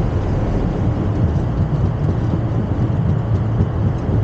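Boeing 737 flight-deck noise during the landing rollout: a steady low rumble of the engines and the wheels on the runway as the airliner decelerates after touchdown, with the thrust reversers deployed.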